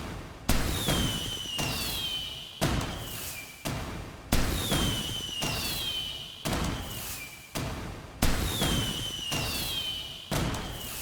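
Fireworks going off in quick succession, about one burst a second. Each is a sharp bang followed by a rumble that fades over about a second, and many carry a high whistle that falls in pitch.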